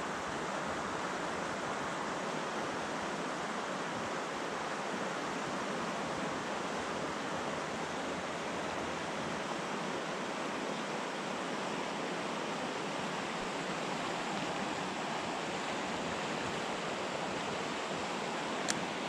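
Steady rush of a creek's flowing water, an even unbroken wash.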